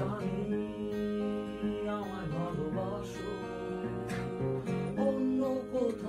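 Acoustic guitar strummed in a steady chord pattern, with a man's wordless singing wavering over it at times.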